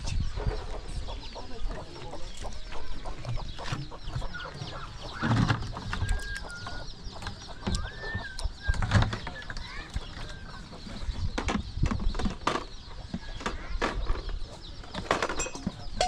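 Farmyard fowl clucking, among scattered knocks and thumps.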